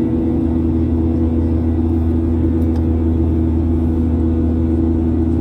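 Steady engine drone from a vehicle, a constant low hum with a few held tones that do not change in pitch.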